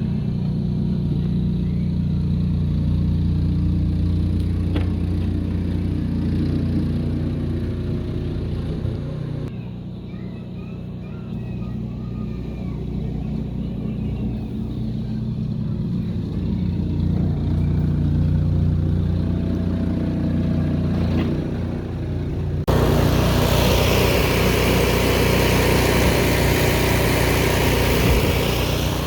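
Craftsman snow blower's gasoline engine running steadily, warming up, with a slight dip in level about ten seconds in. Near the end the sound switches abruptly to a louder run with a strong hiss over the engine.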